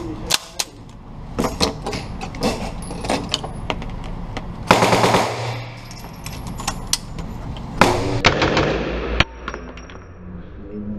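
Full-automatic gunfire on an indoor range: a short rapid burst a little under five seconds in and another about eight seconds in, with scattered single sharp cracks before them.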